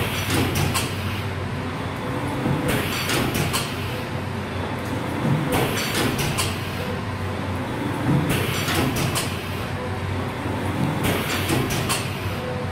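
Automatic BSL shrink-wrapping machine running, a steady hum under a short burst of hiss and clatter about every two and a half to three seconds as each film-wrapped pack goes through a sealing cycle.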